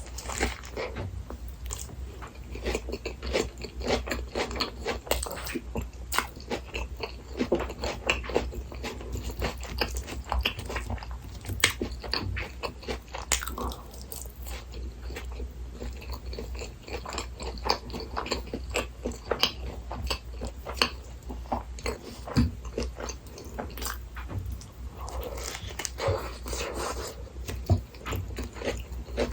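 Close-miked chewing and biting of a fast-food burger meal, with a steady run of small wet clicks, smacks and crunches.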